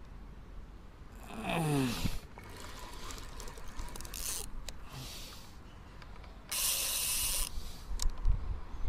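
Spinning fishing reel being cranked, with short scraping and rushing noises; the loudest is a rush of noise lasting about a second, some six and a half seconds in. About a second and a half in there is a short sound that falls in pitch.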